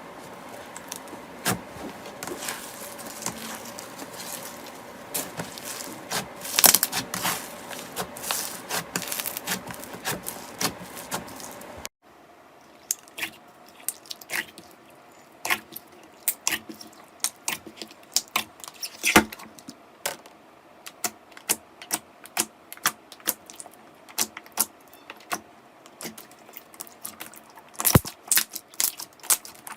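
Slime being squeezed and pressed by hand, giving dense crackly clicking for about twelve seconds. After an abrupt change it gives sparser, sharp pops and clicks from air pockets bursting.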